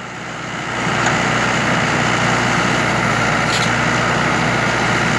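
Mahindra 475 tractor's four-cylinder diesel engine running as it powers a backhoe attachment digging soil. The engine swells louder over about the first second, then holds a steady hum.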